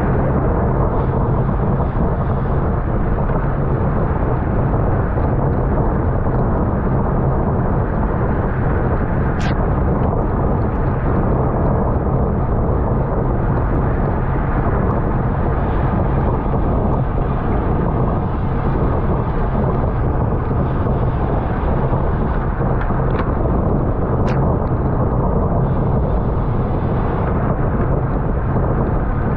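Steady wind rush and road noise on a bike-mounted camera's microphone while racing in a pack. Three short sharp ticks: one about nine seconds in and two close together near the 23–24 second mark.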